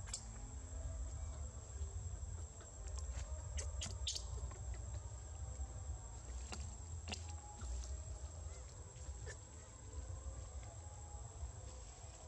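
Steady high-pitched insect drone from cicadas or crickets, over a low outdoor rumble, with a few short clicks scattered through.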